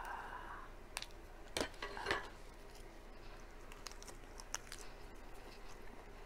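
Light clicks and clinks of a fork against dishes and the grill tray while eating, with a few sharp clicks about one to two seconds in and smaller ticks after.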